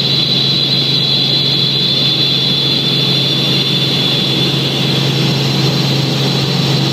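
Helicopter cabin noise in cruise flight: steady engine and rotor noise with a constant low hum and a steady high-pitched whine.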